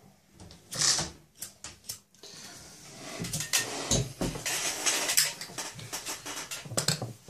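A cigarette lighter being flicked and lit, with short sharp clicks and the rustle of hands and clothing close to the microphone, denser in the second half.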